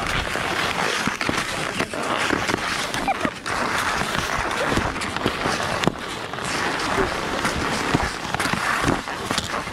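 Skis scraping and shuffling over packed, tracked snow: a steady hiss with scattered short clicks and scuffs.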